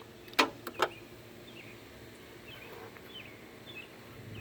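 Three sharp knocks in quick succession within the first second, then small birds chirping faintly.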